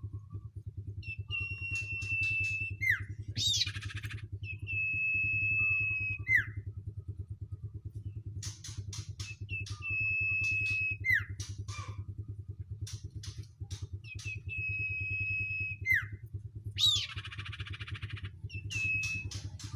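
Young cage birds calling over and over: each call is a long, steady high whistle that drops away at the end, followed by a short harsh screech, repeating every four to five seconds. A steady low mechanical hum runs underneath.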